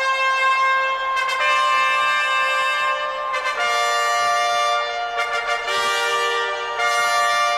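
Music: a slow melody of held, trumpet-like brass notes, each one moving to a new pitch every second or two.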